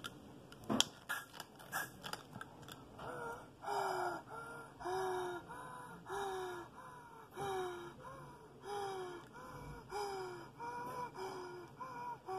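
A child breathing in and out through an inhaler spacer with a face mask, each breath giving a short squeaky tone that falls in pitch, about one a second. A few sharp clicks of handling the plastic spacer come in the first two seconds.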